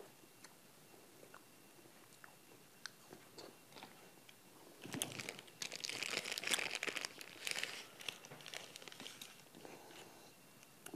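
Soft scattered mouth clicks from eating an ice cream bar, then, about five seconds in, a plastic ice lolly wrapper crinkling and tearing open for about four seconds, the loudest sound.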